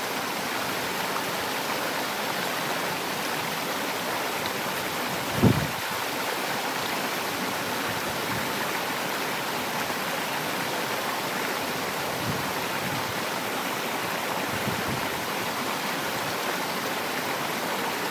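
Steady rush of flowing water, with a single brief low thump about five and a half seconds in.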